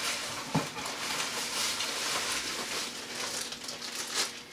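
Plastic packaging rustling and crinkling as an item is handled and pulled from a cardboard shipping box, with a light knock about half a second in.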